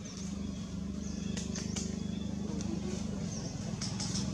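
A steady low motor hum, like an idling engine, with a few short high chirps over it about a second and a half in and again near the end.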